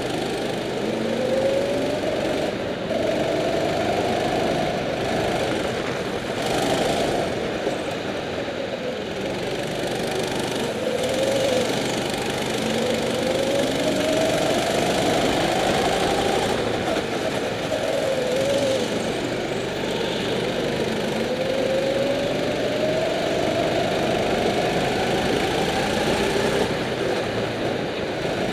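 Go-kart engine heard from onboard, running hard through laps: its pitch climbs as it accelerates down the straights and drops when the throttle is lifted for the corners, several times over.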